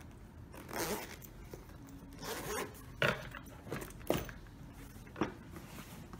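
Zipper of a Vuzix smart-glasses carry case being drawn along, followed by a few light knocks and rustles as the boxed case is handled and set down into a foam-lined hard case.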